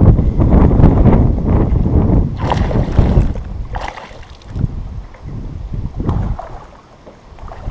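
Wind buffeting the microphone in loud gusts that ease off near the end. About three to four seconds in there is splashing as a hooked largemouth bass thrashes at the surface beside the boat.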